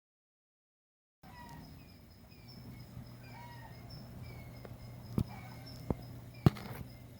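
Dead silence for about the first second, then a bird repeating short falling chirps over a steady high pulsing insect-like trill and a low hum. Three sharp knocks come near the end, the last the loudest.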